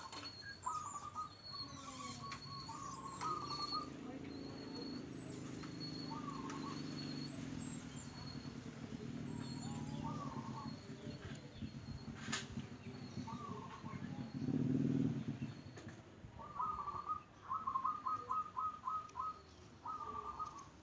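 Zebra doves (perkutut) calling in short phrases of quick pulsed coos, one run of rapid notes near the end, with faint high chirps above. A low rumble rises and falls through the middle, loudest a little before the last calls.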